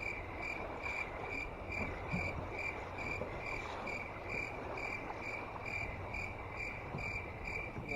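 A cricket chirping steadily, short even chirps at about two to three a second.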